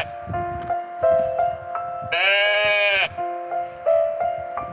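Goat bleating: one bleat about a second long, starting about two seconds in, over background music with sustained notes.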